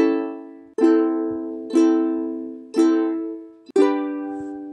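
Ukulele strummed one chord at a time, five strums about a second apart, each left to fade, the last one ringing out.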